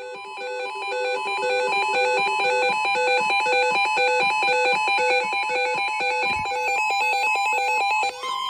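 Looping electronic chime-like alert music, a repeating pattern of pitched notes about twice a second. Near the end the pattern changes and a steady high tone begins.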